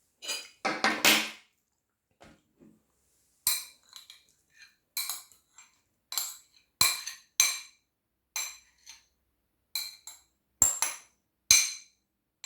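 Metal cutlery against a plate of microwave scrambled eggs: a brief scrape near the start, then about nine sharp, ringing clinks, roughly one a second.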